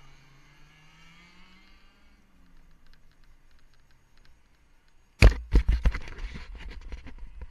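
A distant go-kart engine whines, rising in pitch and fading away over the first couple of seconds. About five seconds in, loud irregular knocking and rumbling on the microphone starts and stays the loudest sound.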